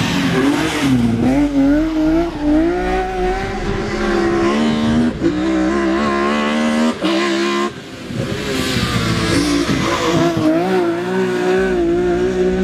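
BMW E46 race car's engine revving hard up and down under full throttle, with short breaks at the gear changes and a brief drop about eight seconds in.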